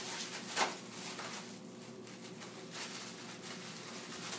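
Wrapping paper crinkling and rustling in a few short bursts as a Scottish terrier tears at a wrapped present, over a faint steady hum.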